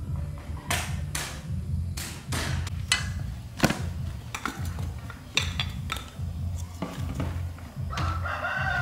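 Irregular sharp knocks and clatters of hard objects, about a dozen over several seconds, over a low steady rumble.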